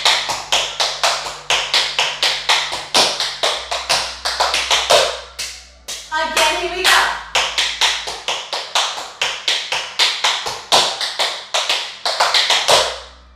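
Tap shoes striking a hard floor in a quick, rhythmic run of taps, several a second, as the instructor dances tap steps. A brief voice comes in about halfway through.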